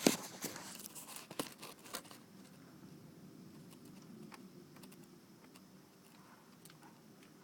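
Rain and hail drops striking a car, heard from inside the cabin: several sharp taps in the first two seconds, then sparse faint ticks over a low steady hum.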